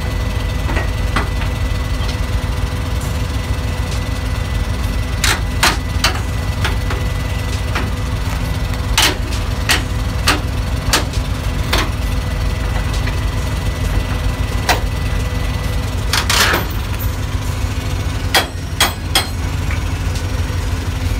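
Ratchet chain binder being tightened on a flatbed load chain: sharp metallic clicks and clanks, in short runs of about two a second, over the steady drone of an idling engine.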